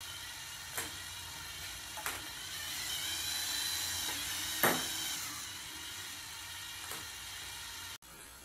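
LEGO Mindstorms EV3 motors whirring steadily as they spin the launcher wheels of a table tennis practice robot. Four sharp pops come as ping pong balls are fired, the loudest just past the middle. The sound drops off abruptly near the end.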